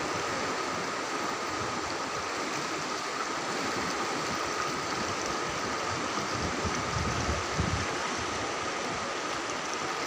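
Swat River running fast and churning: a steady rush of turbulent water.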